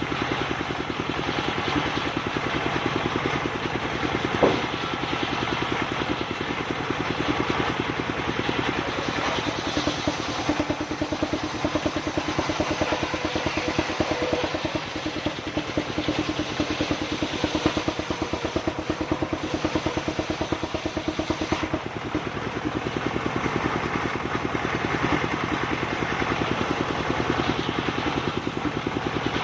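Engine-driven circular sawmill running steadily, with a fast even engine pulse and a stronger steady hum through the middle; one sharp knock about four seconds in.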